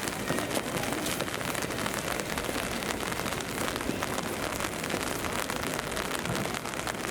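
Heavy rain falling steadily: a dense, even hiss flecked with the patter of drops.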